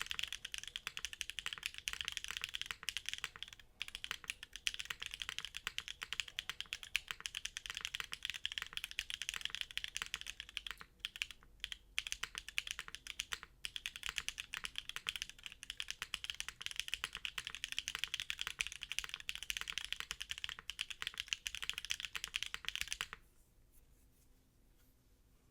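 Typing on an F1-8X mechanical keyboard with a polycarbonate case, Cherry MX Black linear switches and GMK doubleshot ABS keycaps: a fast, steady stream of keystrokes with a couple of brief pauses midway, stopping shortly before the end.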